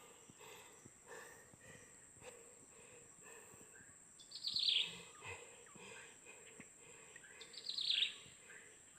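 A bird calling twice, about four seconds in and again near the end, each call a quick run of notes falling in pitch, over a steady high-pitched insect hum.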